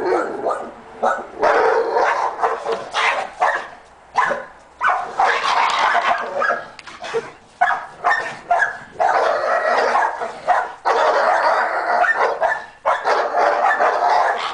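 Several dogs barking, yipping and whining almost without pause, broken by a few short lulls.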